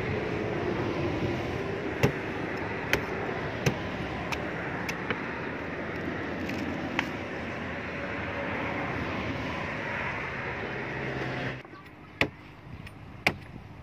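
A large knife chopping into the fibrous husks of toddy palm fruit: single sharp chops a second or so apart, then sparser ones. Behind them runs a steady motor drone that drops away near the end.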